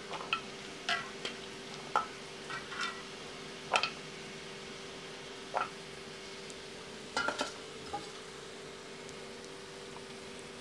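Dried Bombay duck pieces being rinsed by hand in water in steel plates: short splashes, squelches and clinks of the steel plates come every second or so, and stop about eight seconds in. A steady faint hum runs underneath.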